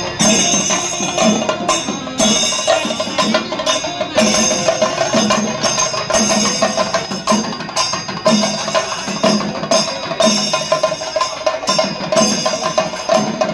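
Music with a steady drum beat under a held melodic line.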